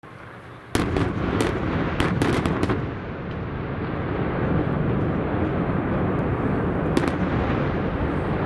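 Explosive charges, Kalymnos-style Easter dynamite, blasting on a mountainside: a sudden burst of sharp bangs starting about a second in, several more in quick succession around two to three seconds, and a single one near the end, over a constant low rumble.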